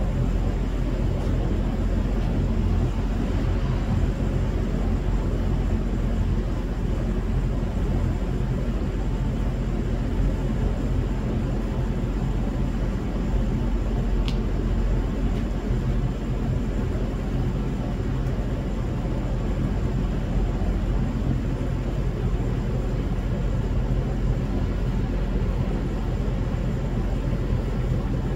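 Steady low outdoor rumble, with a brief high chirp about halfway through.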